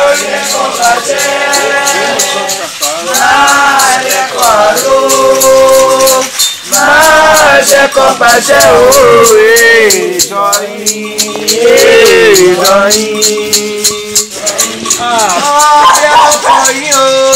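Voices singing a Candomblé song, accompanied by a rattle shaken in a steady, quick beat.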